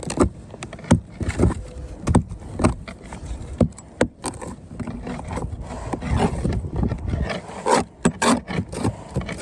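Irregular scrapes and knocks of hand work on a cut-open fibreglass sailboat deck, probing and scraping at its wet wood core.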